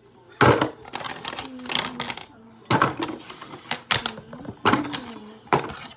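Toy fingerboards in plastic blister packaging clacking as they are dropped into a cardboard box: five sharp clacks, the first about half a second in and the loudest, then four more about a second apart.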